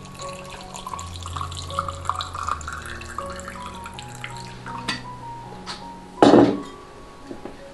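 Water poured in a thin stream into a glass jar packed with peeled water chestnuts, splashing and trickling. A little after six seconds in comes one short, loud knock.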